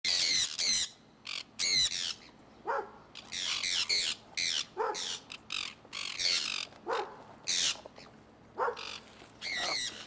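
Sun conures screeching over and over: harsh, high-pitched squawks several times a second, with lower falling notes about every two seconds.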